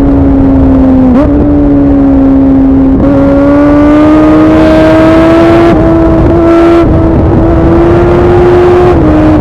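Suzuki Bandit 650's inline-four engine through an aftermarket MIVV exhaust, running loud at steady high revs under way, its pitch slowly climbing with a few brief dips and a drop near the end.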